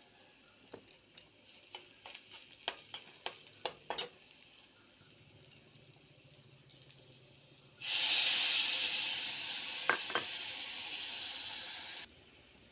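A spatula clicks and scrapes against the frying pan a dozen or so times while onions and spices are stirred. About eight seconds in, liquid hits the hot pan and it sizzles loudly, throwing up steam for about four seconds, then the sizzle stops suddenly.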